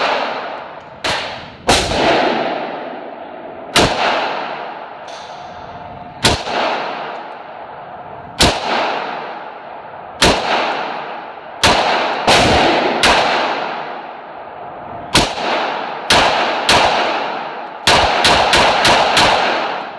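Rifle shots, irregularly spaced one to two seconds apart, each with a long echoing decay. Near the end comes a quick string of about six shots, roughly three a second.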